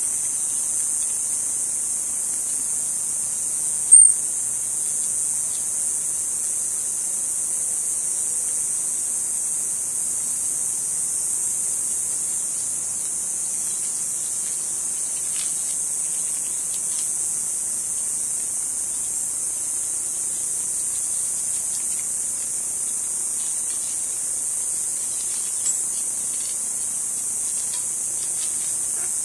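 Steady high-pitched insect drone that does not vary, with one sharp click about four seconds in, a smaller click near the end and faint scattered ticks.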